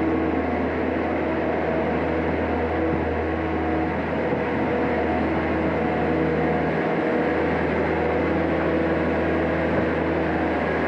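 Skid-steer loader's diesel engine running steadily while the machine pushes muck along the shed floor with its bucket.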